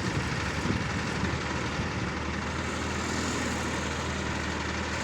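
Heavy engine running steadily at an even speed, with a constant low hum.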